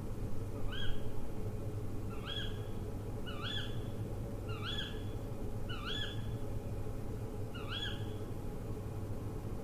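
An owl calling: six short notes, each sliding up and then holding, repeated roughly once a second with uneven gaps, over a steady low hum.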